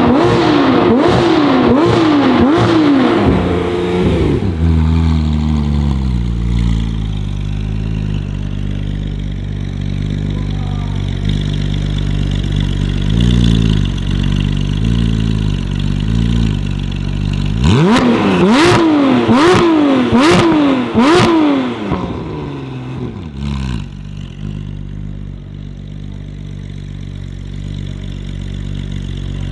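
A performance car engine revved in quick repeated blips, then dropping to a steady idle. A few lighter blips come around the middle. A second run of hard blips comes about two-thirds of the way in, with sharp exhaust pops and crackles among them, before it settles back to idle.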